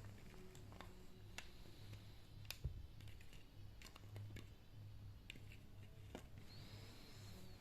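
Near silence with faint, scattered sharp clicks and taps, and a brief faint high whistle-like tone about a second before the end.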